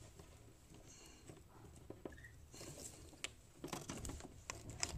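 Faint clicks and light scraping of fittings handled by hand as a water hammer arrestor is screwed onto the threaded outlet of a washing machine tap, with the clicks coming more often in the last couple of seconds.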